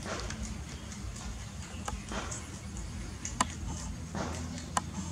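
Young puppies suckling at their mother dog's teats: soft wet smacking with a few sharp clicks, the loudest about midway.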